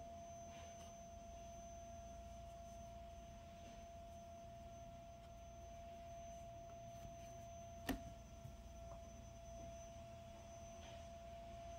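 Near silence: room tone with a faint steady whine and low hum, broken by one sharp click about eight seconds in.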